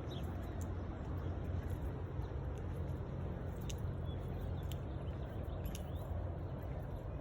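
Steady low rumbling background ambience with a few brief, faint high chirps scattered through it.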